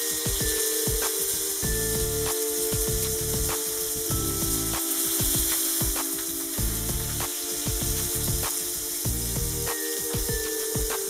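Pork steak frying in vegetable oil in a hot pan: a steady sizzle with rapid crackling pops of spitting fat.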